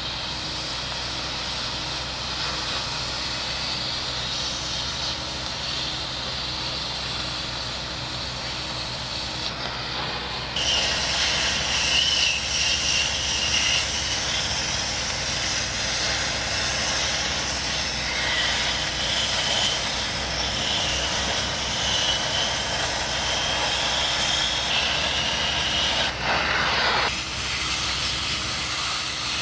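Oxy-fuel cutting torch cutting through 20 mm steel plate: a steady hiss of the gas and oxygen jet. It gets louder about ten seconds in, with a brief break near the end.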